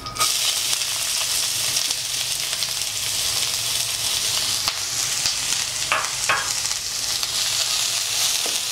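Chopped onions dropped into hot oil in a kadai, sizzling loudly from the moment they hit the oil and hissing steadily as they begin to fry.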